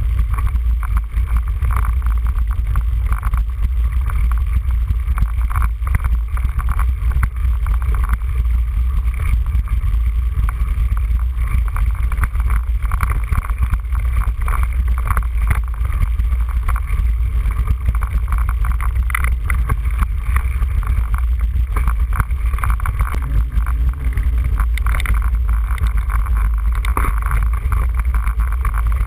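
Mountain bike riding over a rough dirt track, its rumble and rattles mixed with a steady low wind rush on the camera microphone.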